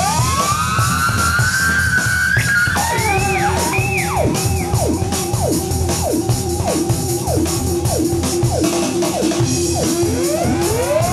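Theremin sounding in long rising and falling glides, then a run of short downward swoops about two a second, over drums in a live rock performance.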